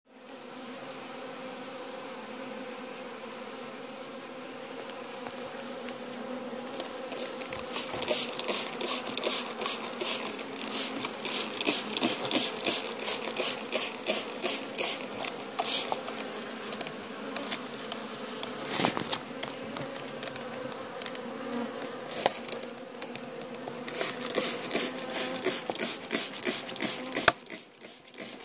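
Honeybee colony in an opened hive humming steadily. From about seven seconds in, a rapid run of short hissing ticks, several a second, sounds over the hum.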